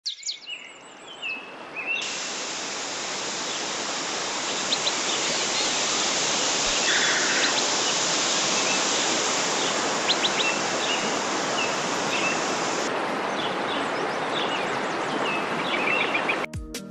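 Steady rush of a waterfall with birds chirping over it; bird calls sound alone at first and the rush of water comes in about two seconds in. The rush cuts out just before the end.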